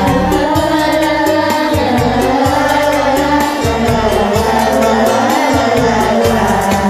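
Group karaoke singing on Smule: several voices singing together over a backing track with a steady bass beat.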